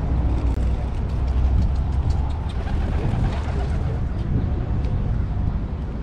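Outdoor city ambience: a steady low rumble of traffic and wind, with light ticks over it in the first few seconds.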